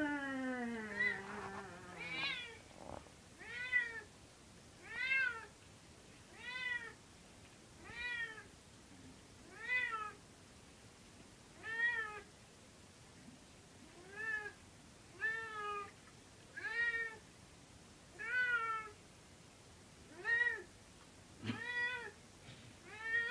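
Domestic cat meowing over and over in protest while being bathed, about fifteen meows roughly one every second and a half, each rising and falling in pitch. It opens with a longer cry that slides down in pitch.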